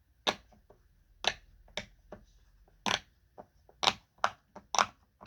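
Silicone pop-it fidget toy being popped bubble by bubble with the fingers: about ten sharp pops at an uneven pace.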